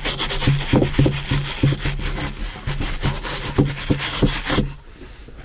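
A brush scrubbing beeswax polish into a carved wooden figure, in quick back-and-forth strokes about three or four a second, stopping near the end.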